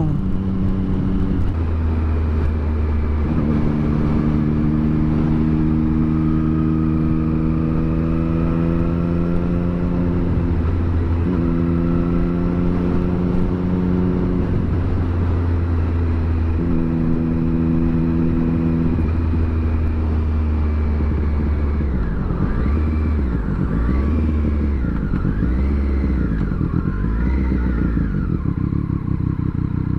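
Triumph Street Triple 765R's three-cylinder engine running under way, heard from on the bike, with wind noise. It holds steady speeds between several gear changes, then from about twenty-two seconds in the revs rise and fall repeatedly.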